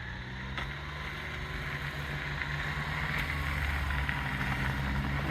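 A small vehicle engine running, its pitch rising slightly as it grows steadily louder, as if accelerating or drawing closer.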